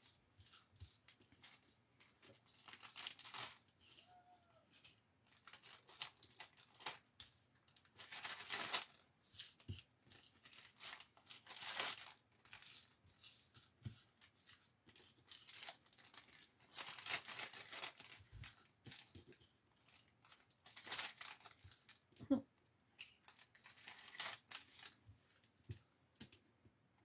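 Clear plastic cellophane bag crinkling in short rustles every few seconds as small die-cut paper pieces are slid back into it, with one brief soft knock about three-quarters of the way through.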